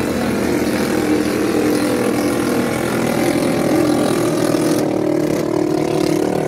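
Small 6.5 hp longtail (ketinting) engines of 4-metre racing boats running flat out, a steady engine note that holds throughout; a high hiss drops away about five seconds in.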